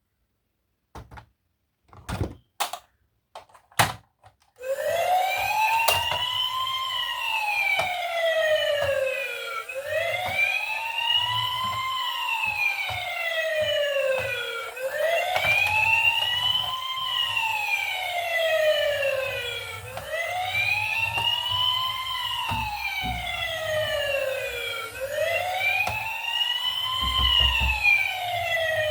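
A few sharp clicks, then a toy emergency vehicle's electronic siren wailing: a single pitched tone with overtones that slowly rises and falls, one cycle about every five seconds.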